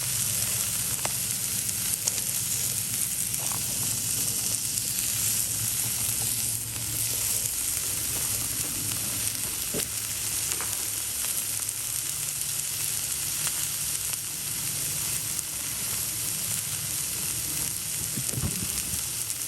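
Food frying with a steady sizzle and a few faint clicks and pops.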